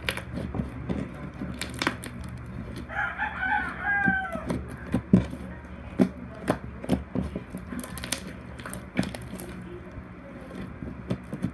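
Slime being squeezed and stretched by hand, with many sharp sticky pops and clicks. A rooster crows once about three seconds in.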